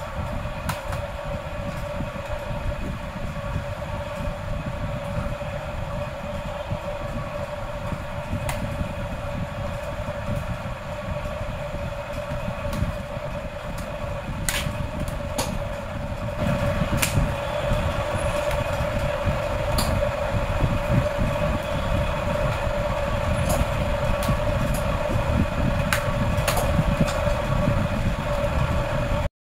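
A steady background rumble with a constant hum runs throughout. Over it come a few sharp clicks, scattered from about halfway through, as a plastic pry tool pops the clips of the laptop's back cover loose. The sound cuts off suddenly just before the end.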